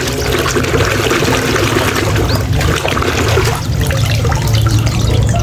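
Water running and trickling steadily as a mud-covered toy vehicle is rinsed clean.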